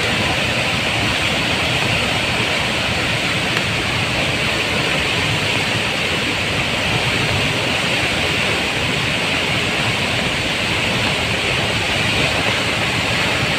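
Soochipara waterfall in spate after heavy rain: a steady, loud rush of falling water that stays even throughout.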